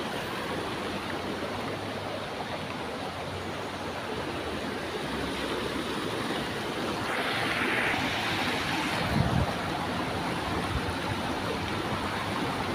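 Shallow stream water rushing and splashing over a low concrete weir and around stepping blocks: a steady rush, louder for a couple of seconds about seven seconds in, with a brief low bump about nine seconds in.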